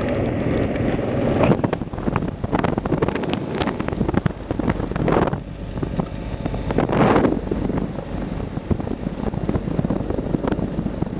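Wind buffeting the microphone of a moving motorcycle in the rain, swelling in gusts about five and seven seconds in, over the steady low running of the Kawasaki KLR's single-cylinder engine.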